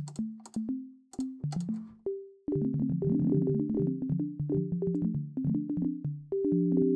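Drambo's FM Operator synth voice playing an arpeggio through a MIDI Chance module, which lets only a random share of the notes through. For the first two and a half seconds the notes are sparse and irregular, each dying away; after that many overlapping notes ring on, ending in a held chord.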